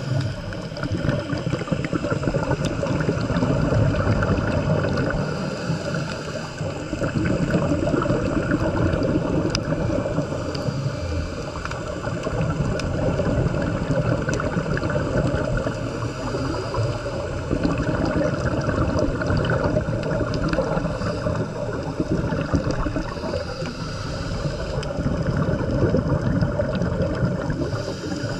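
Scuba diver's regulator breathing and exhaled bubbles, heard underwater: a steady bubbling and gurgling that swells and eases every several seconds.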